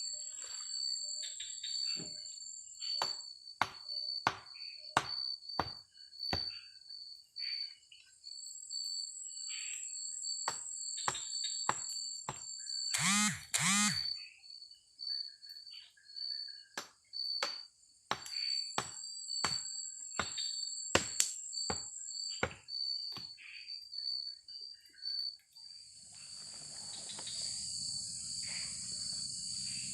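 Night insects chirping steadily in a high, pulsing drone, crossed by many sharp clicks and knocks. About halfway through come two loud, short pitched calls in quick succession, and near the end a steady hiss rises.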